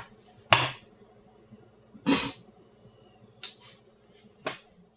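Sharp wooden clacks and knocks as a small wooden model film projector is handled, the loudest about half a second in and another about two seconds in, then two lighter ones, over a faint steady hum.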